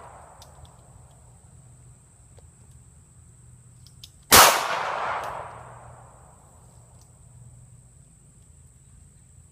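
A single .380 pistol shot about four seconds in, its sound dying away over a second or so.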